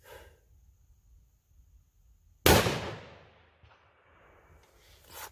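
A single shot from an MPA BA bolt-action precision rifle fitted with a muzzle brake, fired from prone about two and a half seconds in; the sharp report dies away in an echo over about a second.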